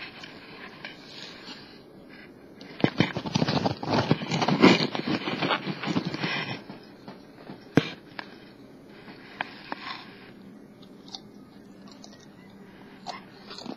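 Crispy bacon being handled and broken up on a plate close to the microphone: a dense stretch of crackling and scraping in the middle, then one sharp click and a few scattered smaller clicks.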